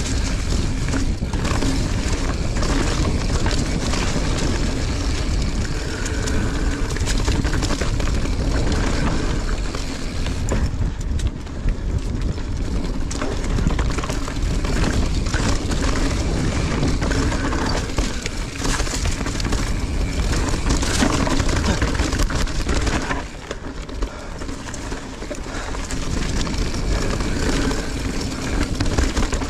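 Mountain bike riding over a dirt trail: steady rumble of wind and tyres with scattered rattles and knocks from the bike, easing for a couple of seconds near the end.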